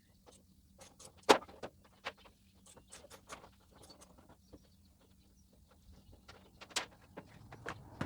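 Scattered clicks and knocks of tools and metal parts being handled, with two sharper, louder knocks, one about a second in and one near seven seconds.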